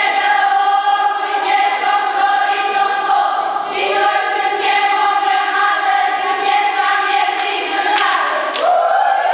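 Children's choir singing a Romanian folk wedding song together in long held notes, the pitch stepping up to a new note near the end.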